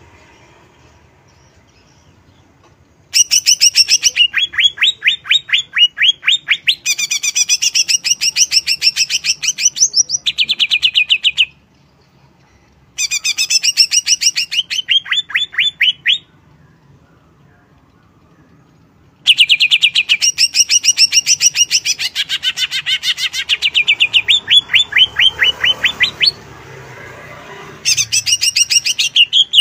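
Greater green leafbird (cucak ijo) singing in four loud bouts of rapid, repeated chirping notes, each several seconds long, with short pauses between them.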